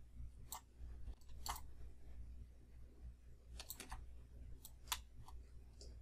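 Computer mouse clicking: several short, sharp clicks scattered irregularly, with a quick run of three a little past the middle, over a faint low hum.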